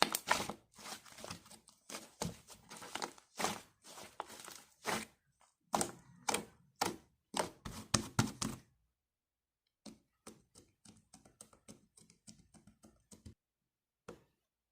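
An irregular run of taps and knocks, dense and fairly loud for about nine seconds. After a short pause comes a lighter, quicker patter of fainter clicks.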